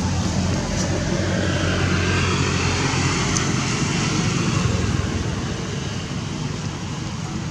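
Steady low rumble of a distant engine, easing off a little after about five seconds.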